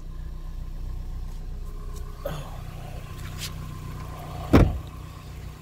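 A small four-cylinder car engine idling quietly, with a car door shut hard once about four and a half seconds in, the loudest sound.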